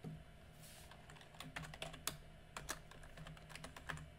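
Computer keyboard being typed on: a faint, irregular run of key clicks starting about a second in.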